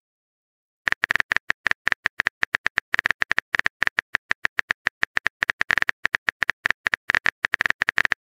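Smartphone keyboard typing sound: a fast, uneven run of short key-tap clicks, about nine a second, starting about a second in.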